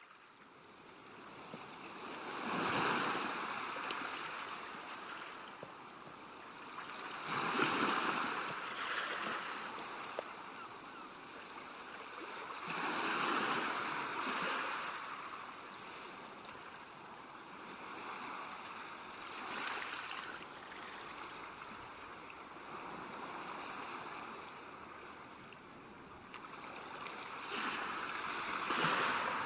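Ocean waves breaking and washing on a shore: a steady rush of surf that swells into a louder break about every five to six seconds.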